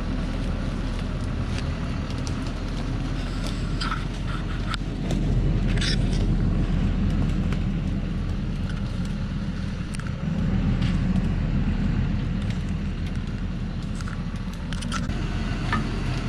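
Diesel engine of a Thaco Forland light truck running, its low rumble swelling louder twice as it is driven slowly over rough ground, with scattered short knocks.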